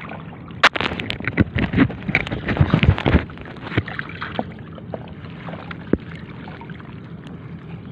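Water sloshing around a small wooden boat, with a flurry of sharp knocks and splashes in the first three seconds, then a steady wash of water.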